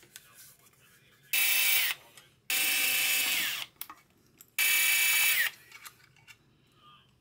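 Cordless power screwdriver run in three short bursts, each a steady motor whine that falls in pitch as the motor winds down, backing out the screws that hold the backplate on a turbocharger compressor housing.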